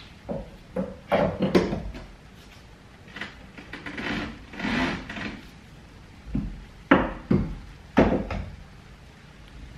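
Clunks, knocks and rubbing from hands and tools working a rear coilover loose inside the wheel arch of a Nissan 180sx. A few sharp knocks come near the end.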